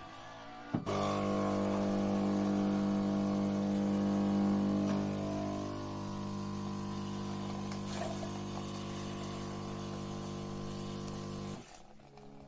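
Philips 2200 LatteGo espresso machine starting its start-up rinse: a click, then its water pump runs with a steady buzzing hum for about ten seconds, pushing hot water out of the coffee spout, and cuts off suddenly near the end.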